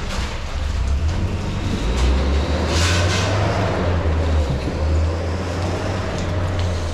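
Street traffic: a vehicle engine's low, steady rumble, with a brief hiss about three seconds in.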